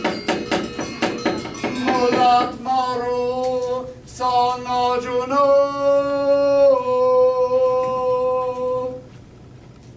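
The dalang's sung chant in a Balinese wayang kulit shadow-puppet performance: one male voice holds long, steady notes that step up and back down, and stops about nine seconds in. It follows a couple of seconds of sharp wooden knocks at the start.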